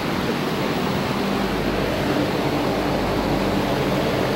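Steady machine noise: a loud, even whoosh with a faint low hum, unchanging throughout.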